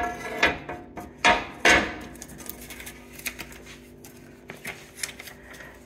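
A ceramic-coated cast aluminum griddle clunks against the gas stove's grates as it is set down across the burners. There are a few loud knocks in the first two seconds, then lighter scrapes and clicks as it is shifted into place.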